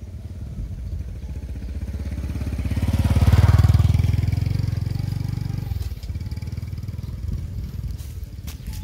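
A motor vehicle's engine passing by, swelling to its loudest about three and a half seconds in and fading away by about six seconds. A few sharp clicks near the end.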